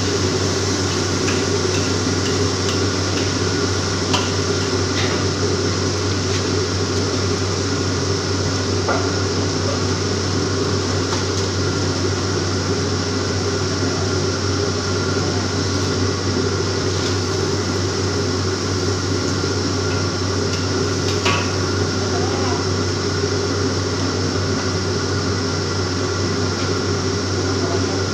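Steady running of a commercial gas wok burner and extractor hood, with a few scattered clinks of a metal ladle and spatula against the wok.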